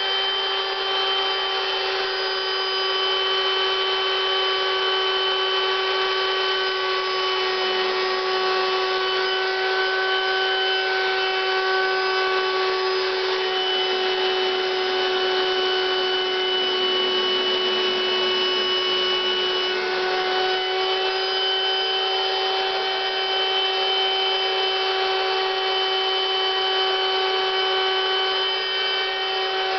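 Electric air pump running steadily with a constant whine, inflating an inflatable latex suit.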